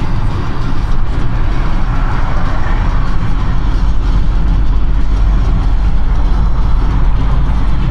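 Car driving at expressway speed: steady low rumble of tyres, engine and road noise.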